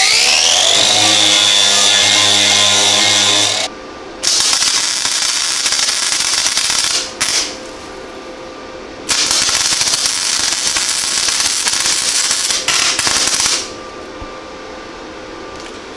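Cordless angle grinder spinning up with a rising whine and running on the sheet steel for about four seconds. Then a Century FC90 gasless flux-core welder's arc crackles in several short runs on thin 22-gauge sheet steel, the longest about three seconds, with the welder's fan humming in the pauses. The welder is running 0.030 wire below the thickness it is rated for, and that thin sheet is hard to weld without burning through.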